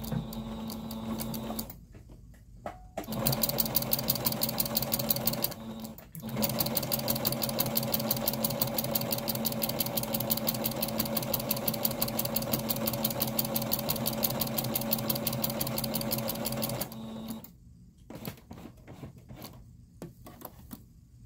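Singer electric sewing machine stitching through layers of terry cloth and cotton, with a motor hum and rapid, even needle ticks. It makes two short runs with stops near the start, the back-and-forth that locks the seam's stitches, then a long steady run of about ten seconds that stops a few seconds before the end.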